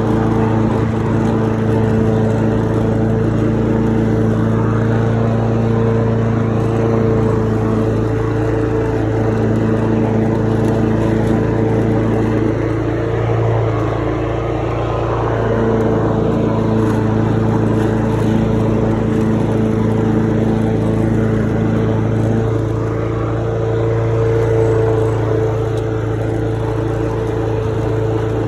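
Lawn mower engine running steadily at constant speed while mowing, with slight dips in its tone now and then.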